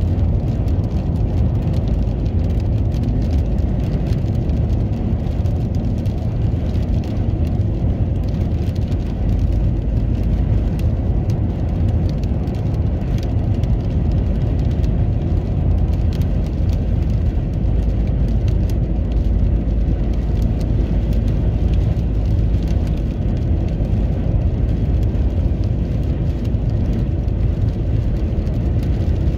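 Car driving in rain: a steady low rumble of road and engine noise, with faint scattered ticks of raindrops over it.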